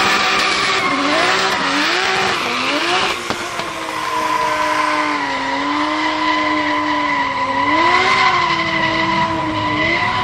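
BMW M3 drift car's engine held high in the revs, its pitch swinging up and down again and again as the throttle is worked through a sliding drift, with the rear tyres squealing steadily over it. The engine note steadies for a few seconds in the middle, then swings again.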